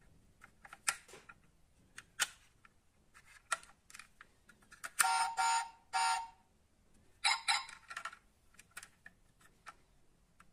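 Small clicks and taps of a die-cast model car's opening doors and parts being handled. About five seconds in there are three quick louder pitched sounds, and another short one comes about two seconds later.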